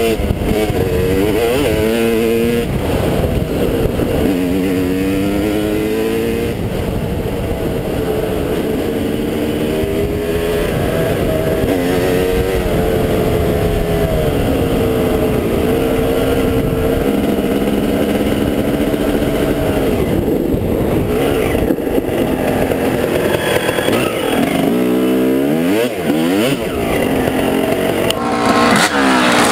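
Dirt bike engine under hard acceleration, revving up through the gears: the pitch climbs, drops at each shift and climbs again. About 25 seconds in, it falls back almost to idle and then picks up once more. Wind buffets the helmet-mounted microphone throughout.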